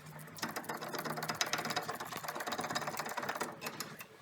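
Hand ratchet clicking rapidly as a fastener on a car's front suspension is spun loose, in a fast, even run that fades out near the end.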